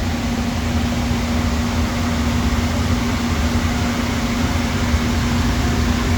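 Steady drone of a running electric machine motor: a constant hum over a low rumble and an even rushing noise.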